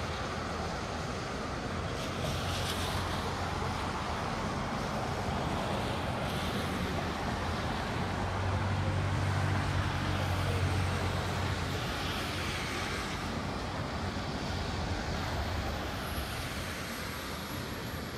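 City street traffic in the rain: a steady hiss of wet road and rain with cars passing. A vehicle's low engine hum swells louder in the middle as it passes close.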